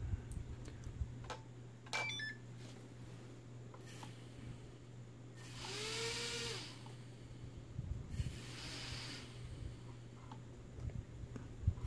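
Micro quadcopter's small electric motors spinning up and back down twice as the throttle is raised and released: a high whirring whine that rises and falls each time. A few light button clicks come about two seconds in.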